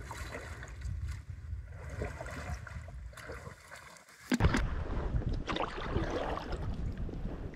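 Strong wind buffeting the microphone, with water lapping and splashing. It dips about four seconds in, then comes back louder with scattered knocks.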